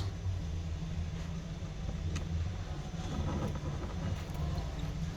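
Steady low hum with a few faint light clicks, one about two seconds in and a few more around three to four seconds.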